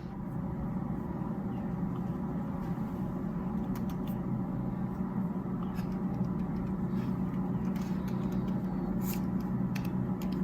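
Steady low rumble with a constant low hum and a few faint clicks, like a running vehicle heard from inside.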